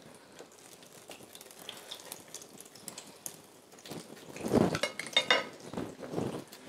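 Dishes and cutlery clinking over a faint sizzle of frying oil, with louder knocks and clinks of crockery about four and a half seconds in.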